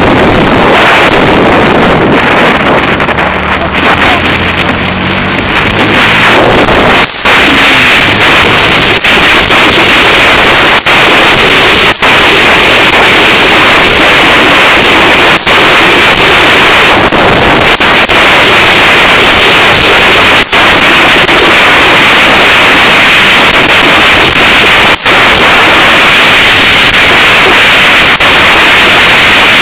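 Loud wind buffeting the microphone of a motorcycle-mounted camera while riding, over the running of a Yamaha YZF R125's 125 cc single-cylinder engine, heard most clearly in the first few seconds. The sound cuts out for a split second a few times.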